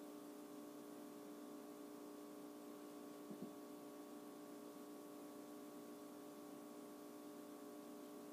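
Near silence: a faint steady hum of room tone, with one brief soft sound a little over three seconds in.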